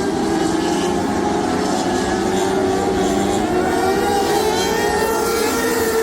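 Lightning sprint cars racing as a pack, several engines running at once with their pitches rising and falling and overlapping as the cars go around the track.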